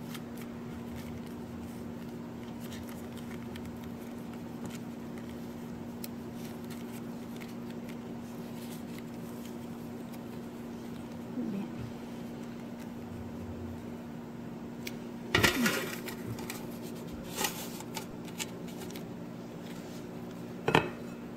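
A steady low hum with faint crinkling as stiff banana leaves are folded into cone-shaped dessert wrappers by hand. A loud clatter comes about two-thirds of the way through, then a few smaller clicks and a sharp knock near the end as the wrapped parcels go into a metal steamer tray.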